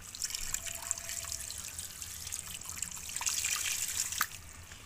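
Strong, steady jet of water from the discharge pipe of an Amara 1600 aquarium water pump, splashing onto the shallow floor of a fish pond that is being pumped dry.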